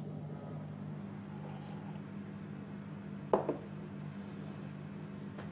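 A glass tumbler set down on a bar counter: a sharp double knock about three seconds in, over a steady low hum.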